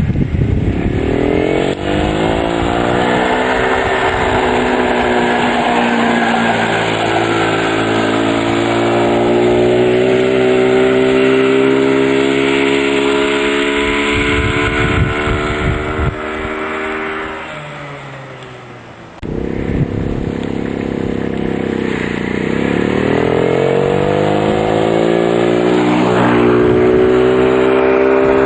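Small 90cc quad ATV engine running and revving. Its pitch climbs as it accelerates and holds high. It drops and fades away about 17 seconds in, returns abruptly about two seconds later, and climbs again.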